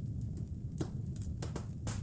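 Wood fire crackling in a fireplace: a few sharp irregular pops, the loudest near the end, over a steady low rumble.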